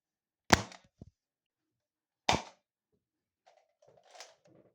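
Nerf foam-dart blaster fired twice, two sharp pops about two seconds apart, with a light click just after the first; a faint rustle near the end.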